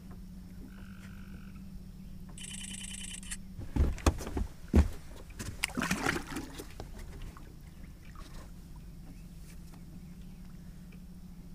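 A large flathead catfish being released over the side of a boat: a few heavy knocks and bumps as the fish is handled against the hull, then water splashing as it goes in. A steady low hum runs underneath.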